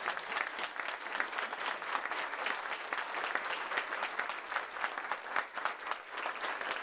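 A roomful of people applauding steadily, many hands clapping at once.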